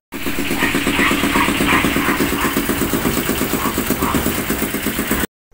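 Septic vacuum truck's engine-driven suction pump running steadily while siphoning out a septic tank through its hose: a fast, even pulsing under a loud hiss. It cuts off abruptly near the end.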